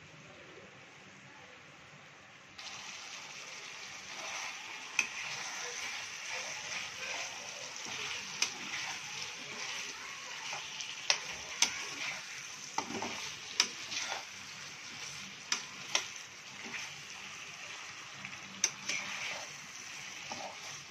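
Masala-coated potato slices sizzling in oil in a metal kadai, with a metal spatula scraping and clinking against the pan as they are stirred and turned. The sizzle is faint at first and grows louder about two and a half seconds in, and the spatula knocks sharply against the pan several times.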